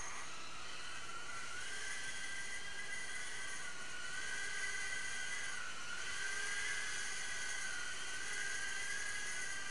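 Whine of a Blade Inductrix micro quadcopter's stock brushed motors and small propellers in flight. The pitch climbs in the first second or so, then wavers up and down with the throttle, over a steady hiss.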